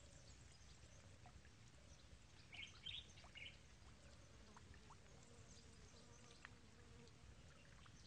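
Faint outdoor nature ambience: a steady low rumble with scattered light ticks, and three short high chirps about two and a half to three and a half seconds in.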